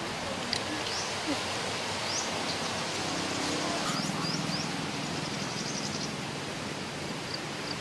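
Outdoor rural ambience: a steady hiss of background noise with brief high bird chirps, each a quick upward sweep, scattered throughout.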